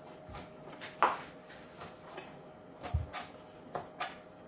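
Kitchen knife cutting shredded lettuce and knocking on a cutting board: a few separate, irregular knocks, the loudest about a second in and a cluster near the end.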